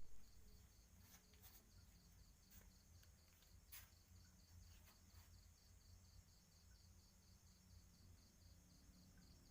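Near silence with a faint insect chirp repeating evenly a few times a second, typical of a cricket, and a few faint clicks.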